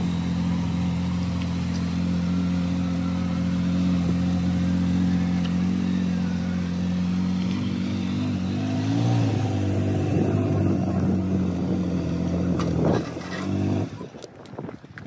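Ford F-150 Raptor's engine idling steadily, its pitch wavering for a few seconds in the middle; the sound falls away near the end.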